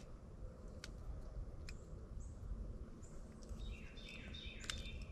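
Songbirds chirping and calling, with a run of quick stepped notes near the end, over a steady low rumble and a few faint clicks.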